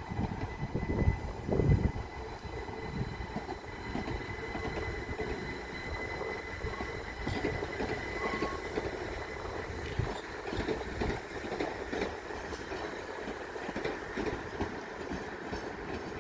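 Class 377 Electrostar electric multiple unit moving slowly through the station. There is a thin steady whine through the first half and two low thumps near the start, then a run of wheel clicks over rail joints and points in the second half.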